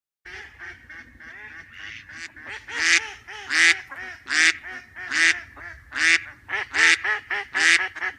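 Ducks quacking. A few soft, quick quacks come first, then loud quacks repeat about once a second.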